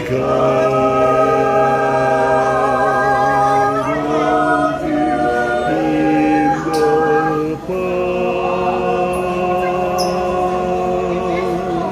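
Small mixed choir of men and women singing a cappella in several-part harmony, holding long chords that shift every second or two.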